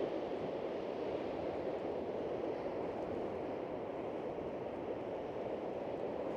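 Steady rushing of wind and lake surf, an even, unbroken noise with no distinct breaks or impacts.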